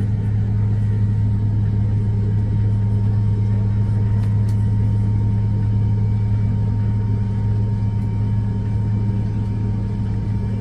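Steady cabin drone of a McDonnell Douglas MD-88 airliner standing on the ramp: a low, even hum with a faint high whine held over it.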